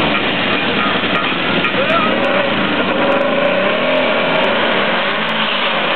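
Two hot-rodded VW Beetles' engines running at the drag-strip start line, revved up and down while the cars sit staged.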